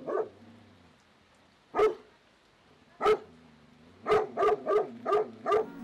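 A caged dog barking: single barks spaced a second or more apart, then a quicker run of about six barks near the end.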